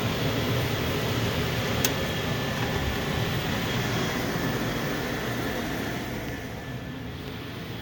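Gas furnace running during a combustion test: a steady rushing noise from its burners and blower, with one sharp click about two seconds in. The noise eases slightly near the end.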